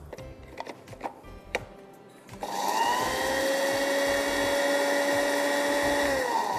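Electric grinder's small dry-grinding jar running for about four seconds as it grinds oats into flour: a steady motor whine that starts after a few light clicks and knocks, then falls in pitch as the motor spins down near the end.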